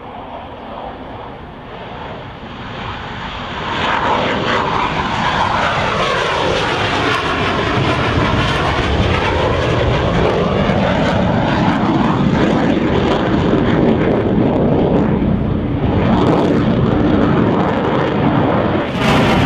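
Blue Angels F/A-18 Hornet twin jet engines at takeoff power as the jets take off and pass low: the noise builds to full loudness about three to four seconds in, with a sweeping rise and fall in tone as a jet goes by.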